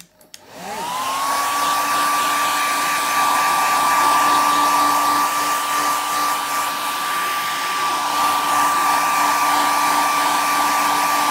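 Hair dryer switched on with a click, its motor whine rising quickly in pitch within the first second, then blowing steadily with a rush of air.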